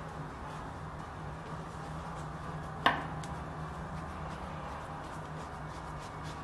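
Hands rolling a log of bread dough on a floured countertop, with one sharp tap on the counter about three seconds in, over a steady low hum.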